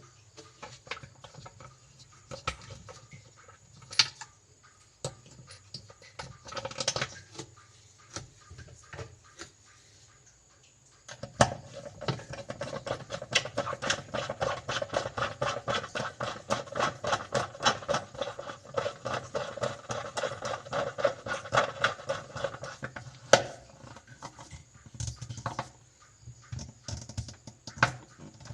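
Hand-tool work on a washing machine during a pulsator replacement: scattered clicks and knocks, then about eleven seconds in a fast, even run of clicks, several a second, that lasts about twelve seconds before breaking back into scattered clicks.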